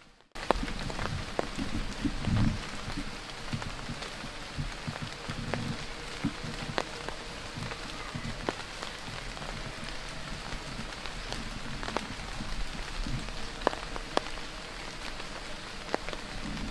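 Steady rain falling, with single drops ticking sharply here and there, and a few dull low thumps in the first few seconds.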